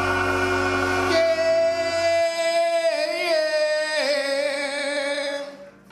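Gospel choir and band holding the final chord of a song; the bass drops out about two seconds in, leaving one sustained high note with vibrato that fades out near the end.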